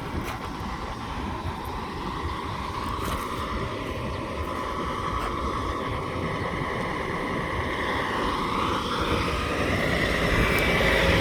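A truck engine running with a steady drone that grows gradually louder, its pitch rising near the end.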